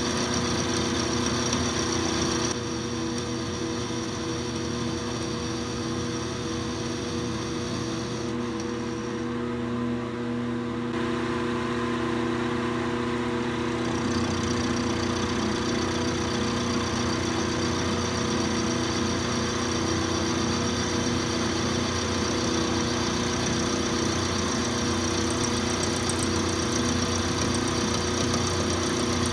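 Milling machine running a 3/8-inch end mill that is cutting a V-groove into a metal block: a steady motor and spindle whine with the cutting noise over it. The sound drops a little about two seconds in and comes back louder about fourteen seconds in.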